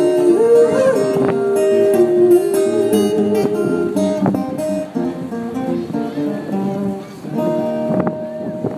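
Live acoustic guitar strumming the closing bars of a song, with a long held note over the chords in the first few seconds, the music thinning out toward the end.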